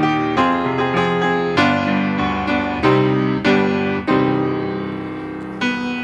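Solo grand piano playing chords, each struck and left to ring out. Near the end one chord is held and fades away before the next is struck.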